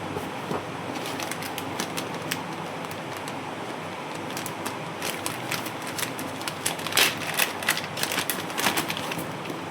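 Packaging being handled and opened: irregular crackling and clicking, growing denser and louder in the last few seconds, over a steady background hiss.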